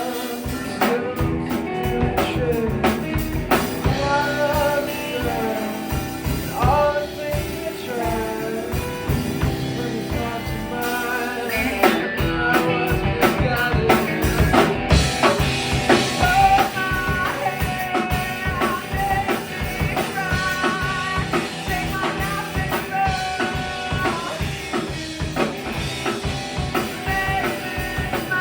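Live band playing an indie-punk song, with a drum kit keeping a steady beat under guitar.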